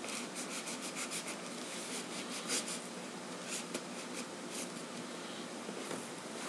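Cardboard shipping box being scraped and worked open by hand: a quick run of short, scratchy strokes over the first couple of seconds, then a few more spaced out.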